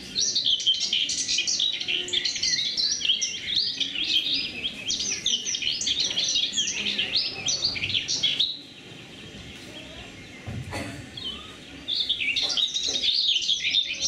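Recorded birdsong: a dense chorus of quick high chirps and trills. It drops away for about three seconds past the middle, then comes back.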